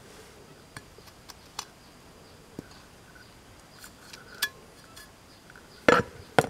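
Potting soil being scattered into a plastic cup around an onion bulb and pressed down by hand: faint scattered ticks and rustles of soil and plastic. Near the end come two louder knocks.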